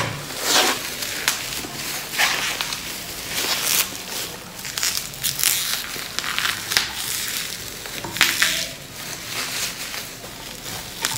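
Bubble wrap crinkling and crackling unevenly as it is handled and pulled off a glass baking dish.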